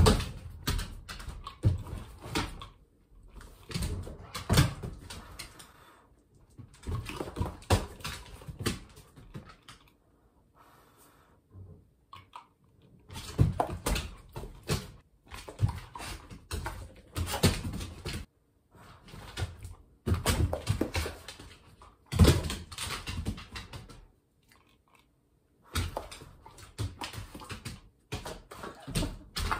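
A German Shorthaired Pointer leaping after soap bubbles: bursts of claw clicks, scrabbling and thumps as it jumps and lands, in spells of a few seconds broken by short pauses.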